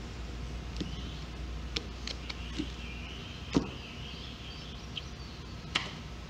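A screwdriver tip prying a small C-clip off the end of a starter motor's rotor shaft: scattered sharp metal clicks and light scraping, the loudest click about three and a half seconds in and another near the end.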